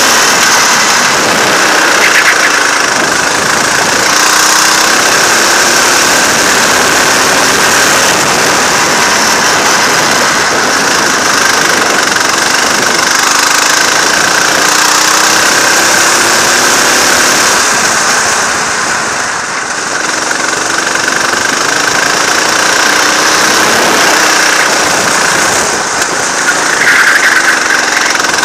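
Go-kart engine heard onboard at racing speed, its pitch rising on acceleration and falling off into the corners, under a strong steady rushing noise. The loudness eases off briefly about two-thirds of the way through, when the driver lifts off.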